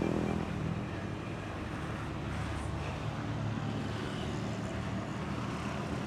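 Steady road traffic: the low engine rumble of a coach moving off with cars and a motorcycle around it.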